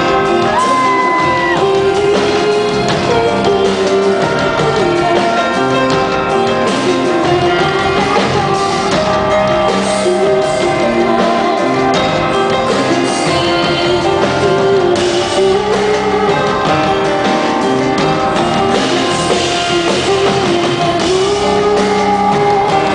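Live rock song: a band with guitar plays while a voice sings, loud and unbroken.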